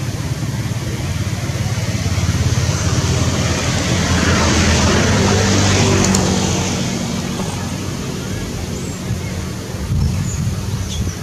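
Road traffic noise, with a motor vehicle passing that is loudest about four to six seconds in and then fades.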